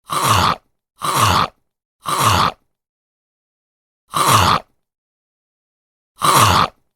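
Horror zombie bite sound effect, played five times: identical half-second bites, the first three a second apart, then two more after longer gaps of silence.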